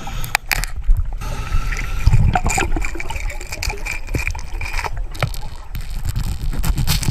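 Underwater sound of scuba diving in a river: gurgling of exhaled regulator bubbles, with a surge about two seconds in, over scattered sharp clicks and knocks.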